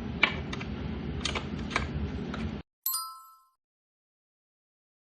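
A few light clicks and taps of hand work on metal parts over a low background hum. The sound then cuts out abruptly, and a short bell-like ding rings and fades in under a second, followed by dead silence.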